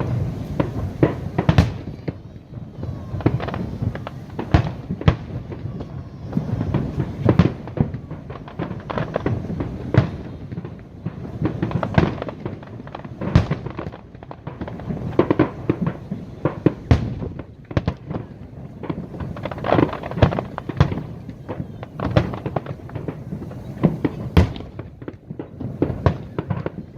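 Fireworks display: shells bursting one after another in quick, irregular succession, a steady run of booms and bangs.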